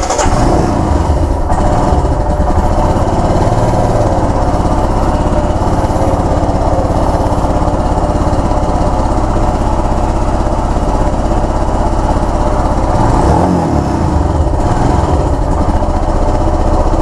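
Royal Enfield Himalayan BS6's single-cylinder engine idling steadily just after being started, with a brief change in its note about thirteen seconds in.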